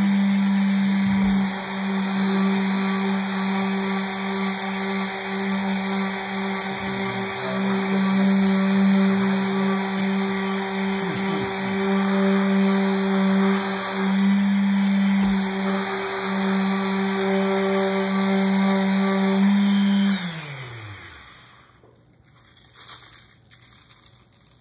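Festool random orbital sander running steadily as it sands a wooden inlay panel, its pitch wavering a little with the pressure on the pad. About 20 seconds in it is switched off and winds down over a second or so, and then there are a few light knocks as it is handled and set down.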